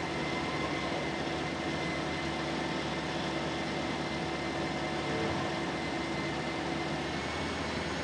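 Toyota Corolla 1.8's engine idling with the air conditioning running on maximum: a steady hum with a thin, steady whine over it, while the A/C system takes in R-134a refrigerant through the low-side port.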